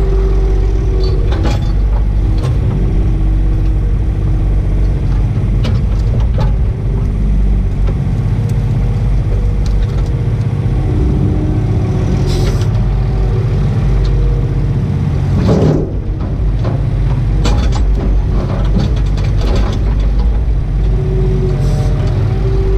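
Takeuchi TB125 mini excavator's diesel engine running steadily, heard from inside the cab, with a hydraulic whine that comes and goes as the arm and thumb work. Scattered knocks and clunks of logs being gripped and set down, one louder knock about two-thirds of the way through.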